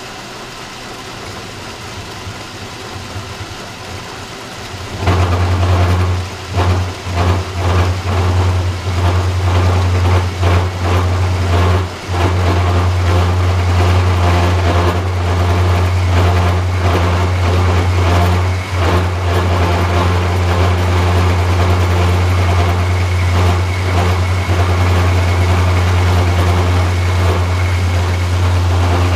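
Metal lathe facing and boring a 3.5-inch solid steel billet. It runs steadily and fairly quietly, then about five seconds in becomes much louder, with a strong low hum and rough scraping noise over it, dipping briefly a few times.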